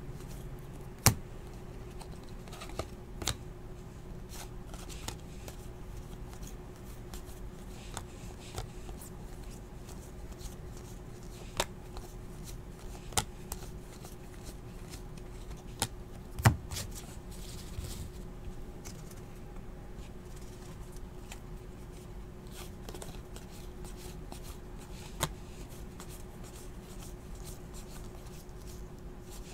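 Trading cards being handled and flipped through, with scattered sharp taps and clicks, the loudest about a second in and about halfway through, over a faint steady hum.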